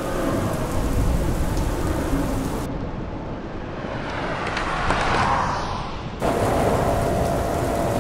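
Heavy rain with rolling thunder, the storm soundscape of a film. About three seconds in the rain turns muffled, as if heard from indoors. Near six seconds in it comes back full, with a steady hum under it.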